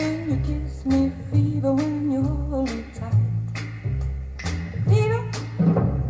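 Music played back through JBL 4309 studio monitor speakers: a slow vocal song, a singer holding wavering, vibrato notes over deep plucked bass notes and sharp snaps about once a second.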